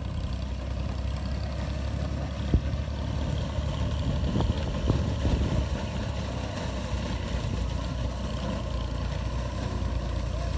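Tractor engine running steadily while its reaper cuts wheat, with one sharp click about two and a half seconds in.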